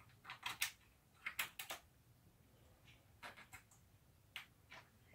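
Flat screwdriver picking at the retaining clip in the groove at the top of a BMW R100R fork tube: faint, short metal clicks and scrapes in small clusters, with gaps between them.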